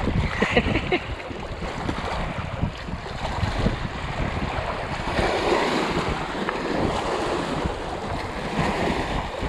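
Wind buffeting the microphone, with Columbia River water washing and lapping against a rocky shoreline.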